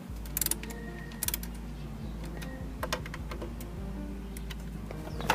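Scattered light clicks and knocks from a Corvette glove box and its new latch being handled, with a sharp snap near the end as the latch catches.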